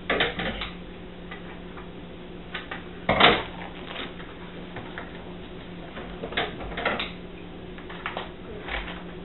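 Handling noise from granite-pattern adhesive film being trimmed and lifted: a scattering of short crackles and taps, the loudest about three seconds in, over a faint steady low hum.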